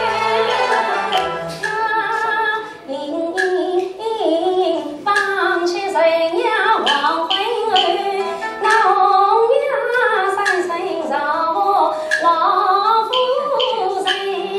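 Yue opera singing in a high female voice with gliding, ornamented melody. It is accompanied by a traditional Chinese ensemble of bowed and plucked strings, with sharp percussion clicks marking the beat.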